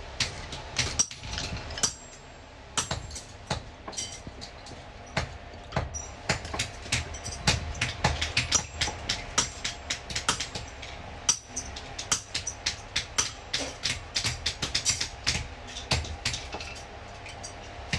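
Small hand hammer tapping steel lock parts on a steel block: quick, irregular metal-on-metal strikes, a few a second, coming thicker after the first few seconds, over a steady low hum.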